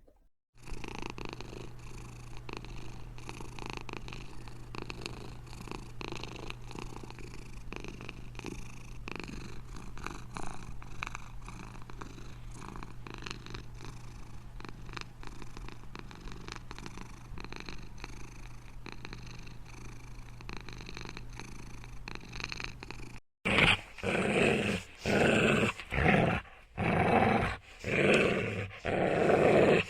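A domestic cat purring steadily for a little over twenty seconds. It then cuts to a dog growling in loud, uneven bursts.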